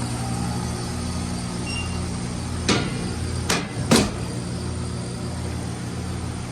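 2014 Carrier heat pump running with a steady electrical hum after being switched back on. Three sharp knocks fall between about two and a half and four seconds in.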